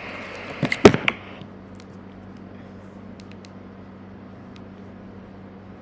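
Handling noise at a computer desk: a short hiss and a quick cluster of sharp clicks and knocks about a second in, then a few faint ticks over a steady low hum.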